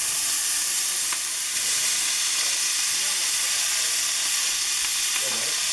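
Garlic sizzling in butter in a frying pan: a steady frying hiss. A voice comes in faintly near the end.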